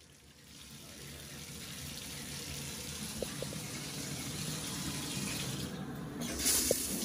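Water running in a bathtub, building up over the first couple of seconds as a steady rush, with a louder, brighter surge near the end.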